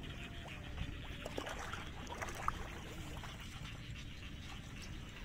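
Small splashes and water dripping as hands work a wet nylon gill net in shallow water, with a few light clicks over a steady low rumble.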